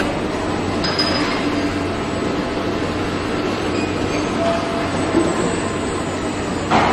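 Steady machinery noise of a car body-shop robotic welding line running, with a low hum, occasional metallic clinks and a short loud burst near the end.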